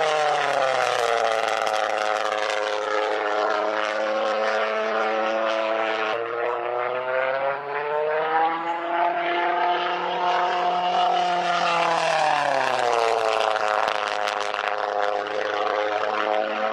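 Pulsejet engine of an RC jet plane running with a loud, steady drone. Its pitch slides down soon after the start, climbs again in the middle and slides down once more about three-quarters of the way through as the plane flies past.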